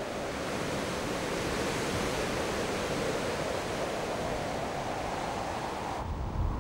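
Steady wind rushing through pine trees, an even hiss. About six seconds in it cuts to a lower, uneven rumble of wind on the microphone.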